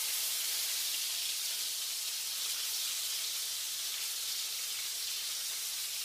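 Flour-coated chicken breast pieces shallow-frying in oil in a frying pan, a steady high sizzle.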